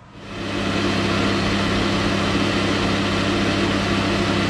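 Geared-head metal lathe starting up, the spindle coming up to speed within about half a second and then running steadily with a steady hum from the motor and headstock gearing.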